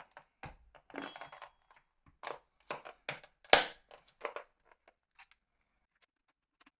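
Plastic parts of an old NEC mobile phone clicking and knocking as they are handled and fitted together. There are about a dozen sharp clicks in the first five seconds, the loudest about three and a half seconds in, then it goes quiet.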